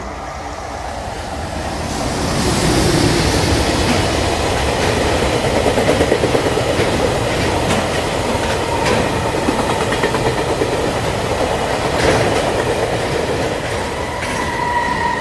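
Added real-train sound effect of a freight train rolling by, with wheels clattering over rail joints. It swells up about two seconds in and holds steady. A steady high tone comes in near the end.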